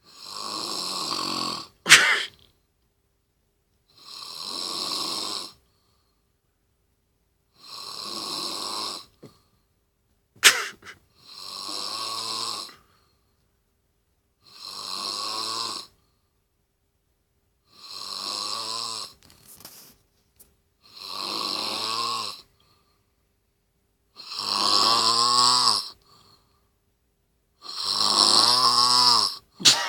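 Loud, regular snoring: nine snores, each about a second and a half long, one every three and a half seconds, the last few the loudest. Two sharp clicks cut in, one right after the first snore and one about ten seconds in.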